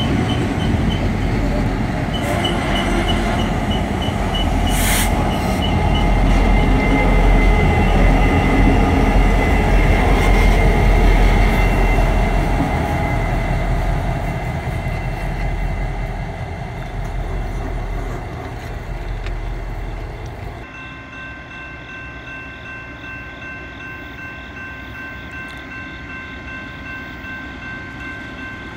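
Two Norfolk Southern EMD SD40E helper locomotives pass close at the rear of a freight train, their diesel engines and wheels making a heavy rumble that is loudest around ten seconds in and then fades, with a sharp clank about five seconds in. About twenty seconds in, the sound cuts to a much quieter distant train scene with a few steady high tones.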